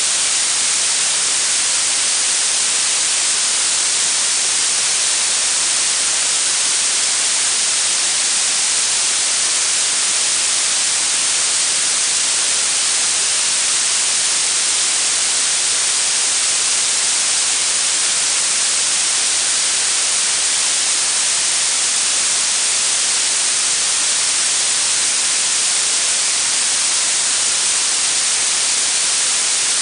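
Blue noise: a steady, unchanging hiss weighted toward the high pitches, with no tones or events in it.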